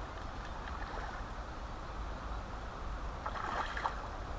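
Steady rush of river water with wind rumbling on the microphone, and a short burst of brighter, close-spaced clicking about three seconds in.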